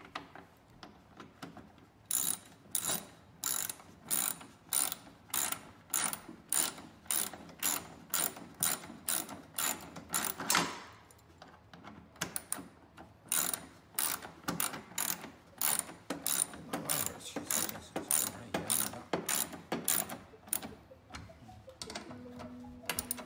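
Ratchet socket wrench clicking in quick, even strokes, about two a second, with a short pause midway, as bolts holding the snowblower's guard plate are tightened.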